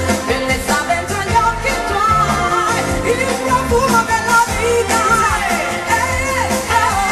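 Pop song playing: a lead vocal sings a gliding melody over a band with bass and a steady drum beat.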